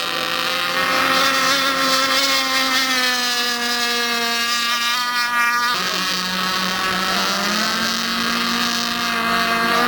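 Several radio-controlled model racing boats' engines whining at high revs, their pitches overlapping. One engine's note falls and drops out abruptly about six seconds in, while the others keep running.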